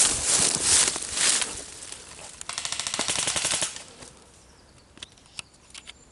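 Airsoft gun firing one rapid full-auto burst of about a second, an even rattle, after a loud noisy rush at the start. A few scattered single shots follow near the end.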